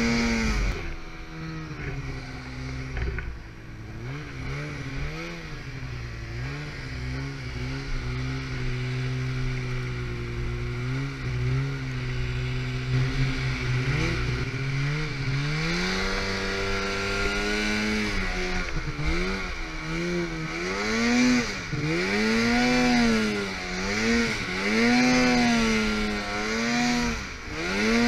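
Snowmobile engine running under way through deep powder snow. It holds a fairly steady pitch at first, then from about halfway revs up and down again and again as the throttle is worked.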